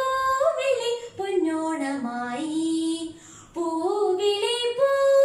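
A teenage girl singing a Malayalam Onam song (Onappattu) solo, in long held notes that glide from pitch to pitch, with a short breath pause a little past halfway.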